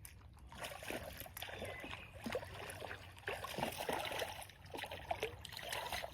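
Water splashing and dribbling in many small irregular splashes.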